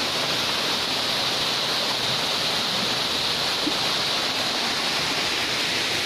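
Small waterfall pouring over rock into a pool, a steady, even rush of falling water.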